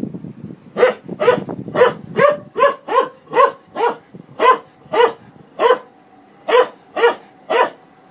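A dog barking at a running front-loading washing machine: about fourteen sharp barks in a steady series, roughly two a second, starting about a second in with short pauses between them.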